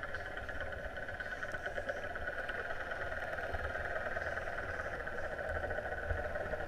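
Steady, muffled underwater drone picked up by an action camera inside its waterproof housing, with a low rumble underneath.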